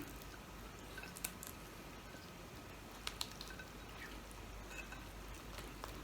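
Faint chewing and mouth sounds of a person eating grilled milkfish, with a few small sharp clicks.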